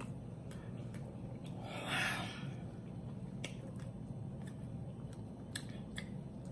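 Close-up chewing of crispy rotisserie chicken skin with sauce: scattered wet mouth clicks and lip smacks, with a louder short rush of noise about two seconds in, over a low steady hum.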